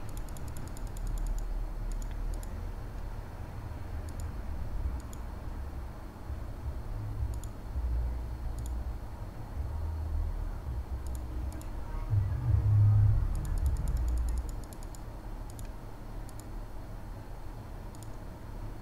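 Light clicks of a computer mouse and keyboard, some in quick runs near the start and again around twelve seconds in, over a low rumble that swells for a couple of seconds near the middle.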